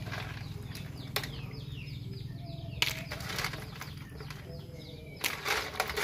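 Hands sorting live snails out of a basin of water into a plastic basket: a few sharp clicks of shells on plastic, and wet splashing and sloshing near the end as hands dig into the water. A steady low hum lies underneath, with a bird's short falling chirps in the middle.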